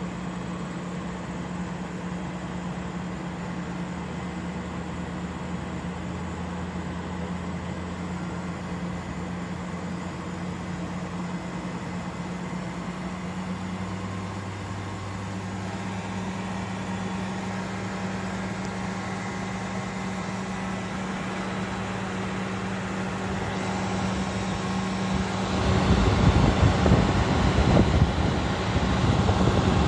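Tesla Model S front cooling system running behind the opened bumper intake vents: a steady electric hum whose pitch shifts slightly about halfway through. A fan's airflow then builds and, in the last few seconds, rushes loudly over the microphone held up against the radiator.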